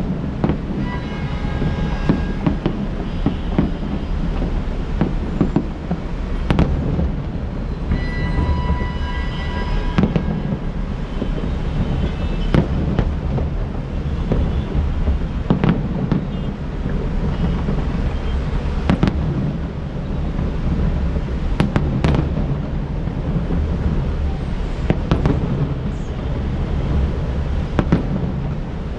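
Aerial fireworks bursting with about ten sharp bangs a few seconds apart, over a steady low rumble of city traffic. Short high whistles come near the start and again about eight seconds in.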